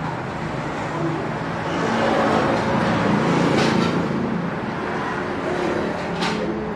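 Road traffic going by: an engine-driven vehicle passing, its sound swelling through the middle and easing off toward the end, with a couple of brief hisses.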